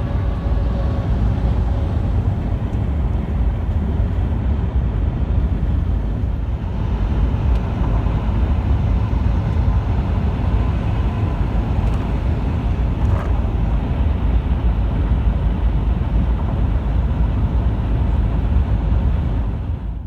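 Road traffic with heavy trucks, a steady low rumble of engines and tyres on the highway.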